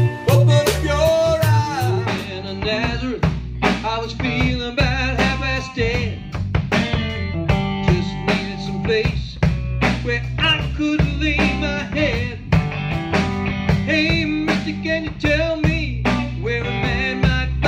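Live band playing: electric guitar over a bass line, with a drum kit keeping a steady beat.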